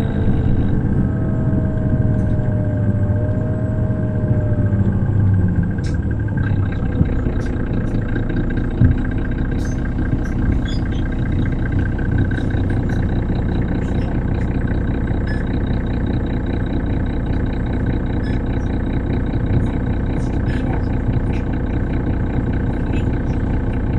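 2005 Mercedes-Benz O530 Citaro city bus heard from inside the cabin: its OM906hLA six-cylinder diesel and ZF automatic gearbox running, with a faint gliding whine early on. The engine sound drops about six seconds in and then runs steadily, with scattered light clicks.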